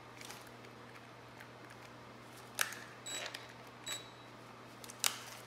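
A few sharp metallic clicks and clinks from a socket and extension on a cordless impact driver being worked onto a bolt, the loudest about two and a half seconds in and again about five seconds in, over a low steady hum.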